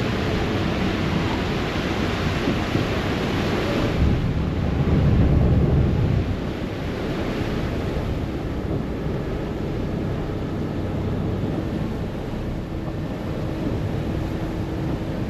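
Wind buffeting the microphone over the rush of water churned by a moving harbour ferry, with a gust of deeper rumble about four to six seconds in. A faint low drone, likely from the ferry's engines, runs underneath.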